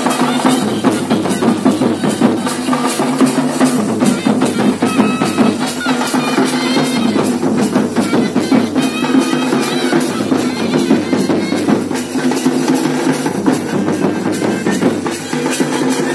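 Nagpuri wedding drum band: large barrel drums beating a fast, steady dance rhythm, with a wavering melody line over them.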